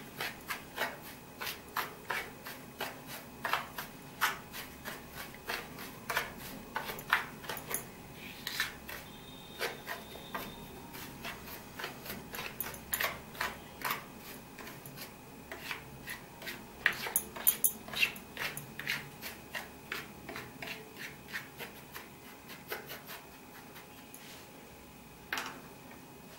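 A spatula scraping round a plate, stirring a dry mix of bread crumbs, sesame seeds and semolina, in repeated strokes about two a second that thin out near the end.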